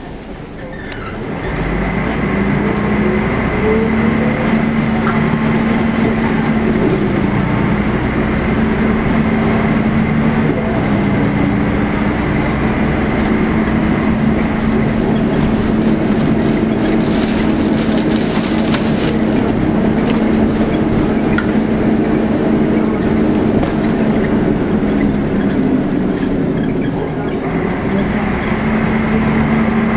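Volvo B10M single-decker bus's underfloor diesel engine heard from inside the saloon, pulling away about a second in with a rising whine and then running under load with a steady drone. A brief hiss about two-thirds of the way through, and the engine eases off and picks up again near the end.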